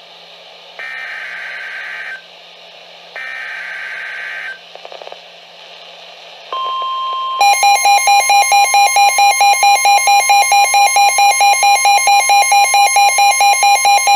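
NOAA Weather Radio Emergency Alert System signal: two more one-second bursts of screechy two-tone SAME header data, the last of three, then the steady warning alarm tone starts about six and a half seconds in, announcing a new warning. About a second later a loud pulsing alarm of about four beeps a second joins the steady tone and runs on.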